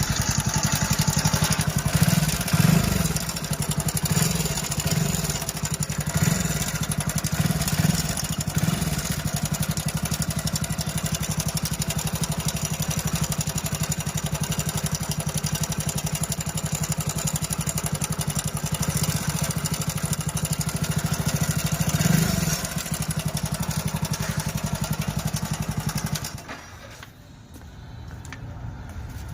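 Hero Splendor Plus BS6's 97cc single-cylinder four-stroke engine running, blipped on the throttle several times, with the timing chain noise this model develops: a sign of a worn timing chain set that needs replacing. It is switched off about 26 seconds in.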